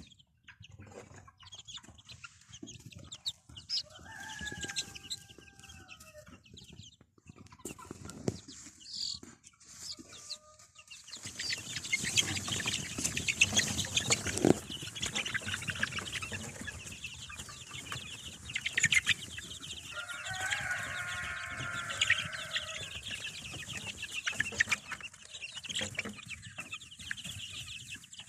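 Domestic chickens clucking, with a couple of longer drawn-out calls; from about eleven seconds in the clucking grows louder and busier.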